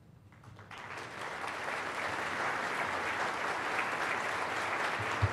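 Audience applauding, starting about a second in and swelling to steady clapping, with a single low thump near the end.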